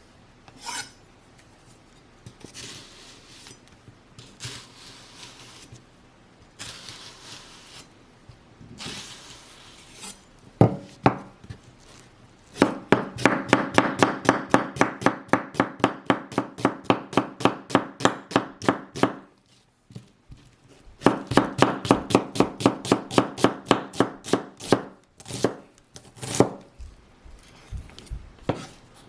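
Kitchen knife chopping fast on a cutting board, about five strokes a second, in two runs of several seconds with a short pause between. Softer scraping sounds and a single knock come first.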